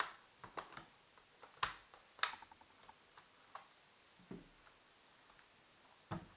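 Irregular sharp clicks and taps of a laptop's plastic case being handled while its battery is taken out, about a dozen in the first few seconds. Then two duller knocks as the laptop is turned over and set down.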